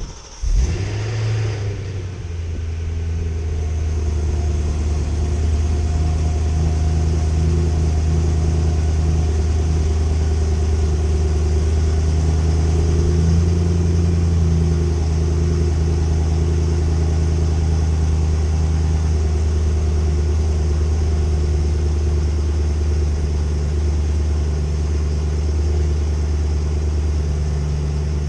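BMW E92 M3's V8 with an Autobahn Exotics aftermarket exhaust on a cold start. It flares briefly just after catching, then settles into a steady cold idle.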